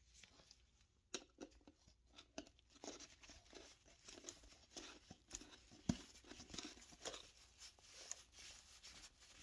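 Screwdriver prying the metal lid off a can of glazing putty: repeated scraping and small clicks of steel on the lid rim, with one sharper click near the middle.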